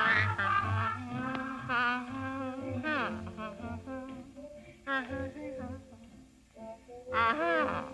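A woman's voice humming a slow, swaying tune over orchestral cartoon music, with a louder sung phrase near the end.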